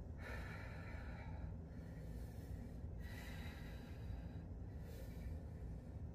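A woman breathing slowly and audibly in and out while holding a side plank, about two full breaths.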